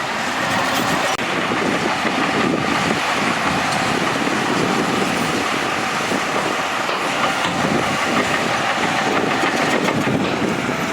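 Bulldozer at work: its diesel engine runs steadily, with a metallic clatter from its tracks.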